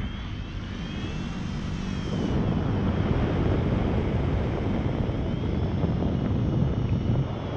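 Wind rushing over an action camera's microphone in paraglider flight: a steady low rush, with faint high whistles that rise and fall.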